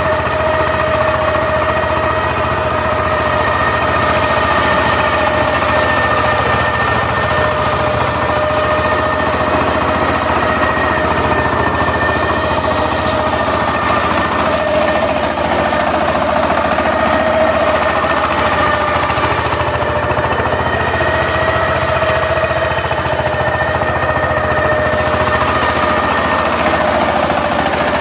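Single-cylinder diesel engine of a two-wheel power tiller running steadily under load while it tills. It makes a rapid, even clatter with a steady high whine over it.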